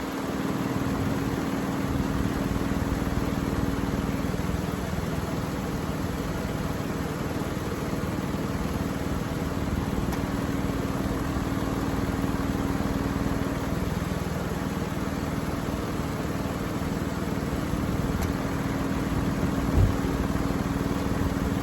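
Jeep Grand Cherokee's engine idling steadily, with a steady fan hum over it. A single low thump comes near the end.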